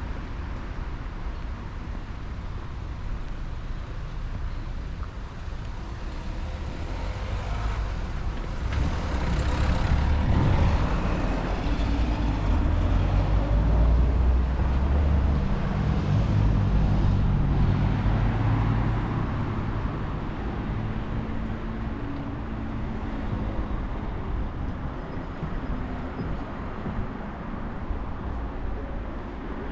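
Street traffic: a motor vehicle drives past, its engine rumble building from about eight seconds in, loudest for several seconds, then fading away.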